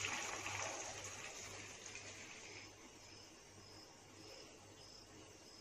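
Frothy boiled soapnut water poured from a steel bowl through a steel mesh strainer into a pot, a trickling splash that fades away about halfway through. After that, faint short high chirps repeat a little under twice a second.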